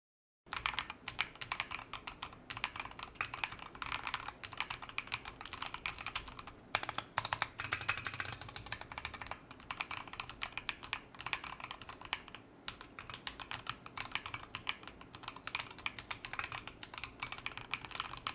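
Typing test on a custom Melgeek Mojo65 mechanical keyboard with an aluminium case, Harimau switches and Akko ASA translucent clear keycaps: fast, steady keystroke clacks in long runs, broken by a couple of brief pauses.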